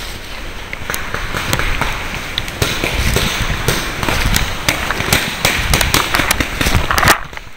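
Paintball markers firing: a run of sharp, irregular pops over the close rub and knock of gear against the microphone.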